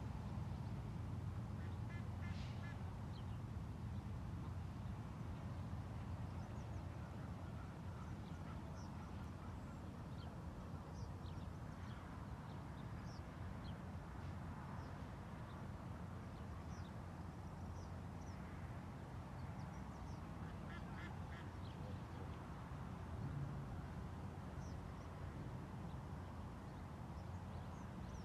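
Faint waterfowl calls, short repeated honking calls about two seconds in and again around twenty seconds in, with small bird chirps scattered between, over a steady low rumble.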